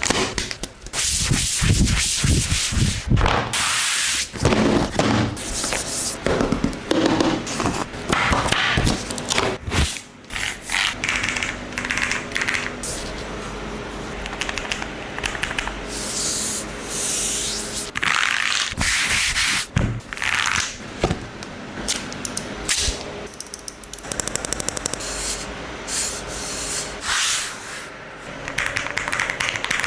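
Unboxing handling sounds from a low-profile aluminium keyboard and its packaging: rustling, rubbing and scraping, with scattered sharp knocks. Near the end comes a fast run of key clicks from typing on the low-profile mechanical keyboard.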